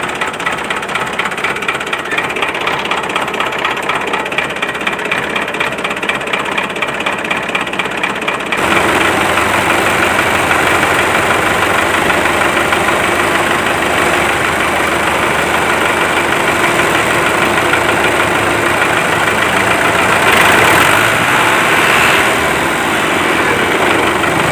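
A motor running steadily under load with a fast pulsing beat. About eight and a half seconds in it turns abruptly louder and fuller, then swells briefly near the end.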